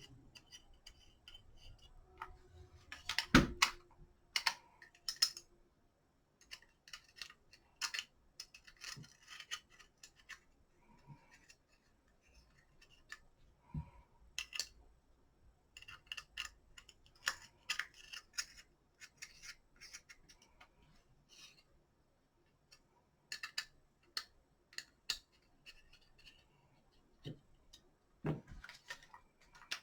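Irregular light clicks, taps and scrapes of a quad rail's parts and screws being handled and fitted onto a Kel-Tec PLR16 pistol, with a sharper knock a few seconds in.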